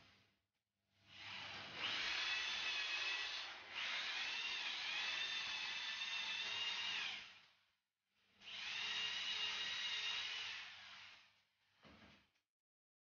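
Corded electric drill boring the cup holes for concealed hinges into a cabinet door panel: three runs of motor whine of a few seconds each, stopping in between, and a short blip near the end.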